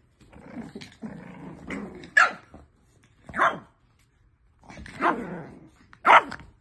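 Six-week-old French bulldog puppies play-fighting, growling and giving several short, sharp barks, the loudest about two, three and a half, and six seconds in.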